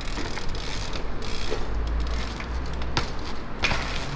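Trials bike freewheel ratcheting and its tyres rolling on paving, with a few light knocks as the bike hops on its rear wheel and lands.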